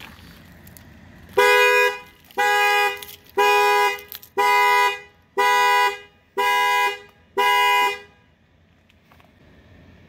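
2022 Chevrolet Camaro's horn sounding seven times, about once a second, two notes at once. It is the alarm going off because battery power was restored while the car was locked.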